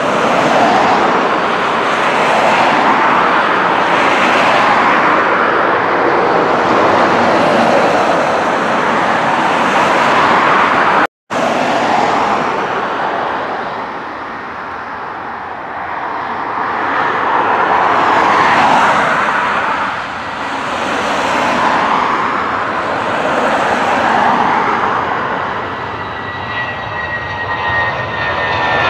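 Jet engines of a British Airways Airbus A319 on its take-off run and lift-off: a loud, steady rushing roar that swells and fades, with a brief dropout about a third of the way in. Near the end a thin falling whine comes in as the aircraft climbs away close by.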